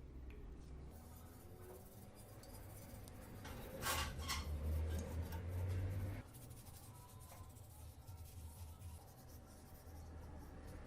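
Scratchy rubbing or scraping, louder for a couple of seconds in the middle, over a low steady hum.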